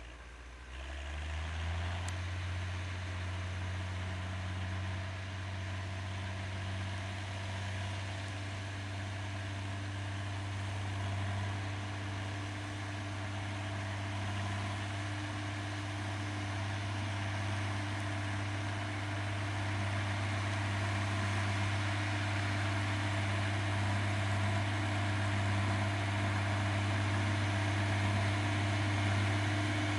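Schlüter 1250 Special tractor's diesel engine working steadily under load while ploughing, a deep even hum that comes in abruptly about a second in and grows gradually louder as the tractor draws closer.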